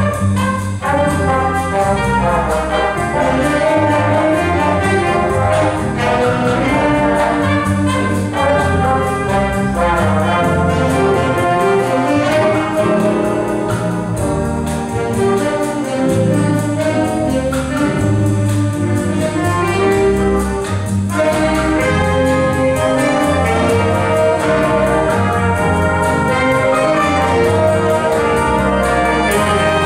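An ensemble playing music with brass instruments, trumpets and trombones, prominent.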